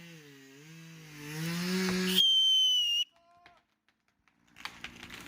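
Chainsaw engine running at idle, its pitch dipping and then recovering, followed by a high whistle lasting under a second. The sound cuts off abruptly, and after a near-silent pause crackling and snapping start near the end.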